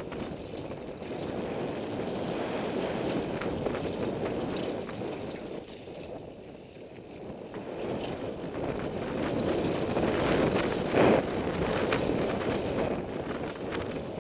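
Mountain bike descending a dirt and gravel trail: wind rushing over the microphone, tyres crunching on the ground and the bike's chain and frame rattling, quieter for a moment in the middle. A sharper clatter about eleven seconds in.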